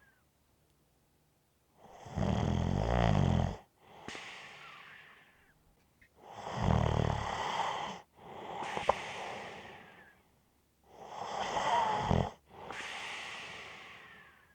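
A person snoring: three loud, rattling snores about every four to five seconds, each followed by a softer breath that fades away.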